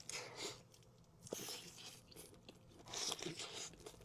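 A person biting into and chewing Wendy's fast food close to the microphone, with faint crunches coming in several irregular clusters.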